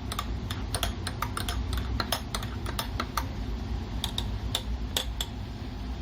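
Metal spoon stirring coffee in a cup, clinking repeatedly against its sides, the clinks coming less often in the second half.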